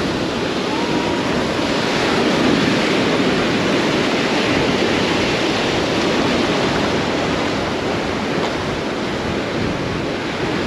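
Ocean surf breaking and washing through shallow water at the shoreline, a steady, loud rush.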